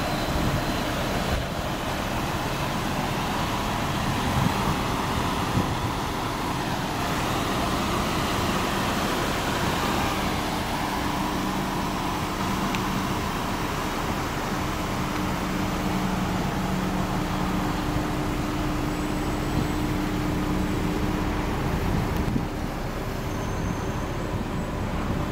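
Steady motor-vehicle noise with a faint low hum throughout.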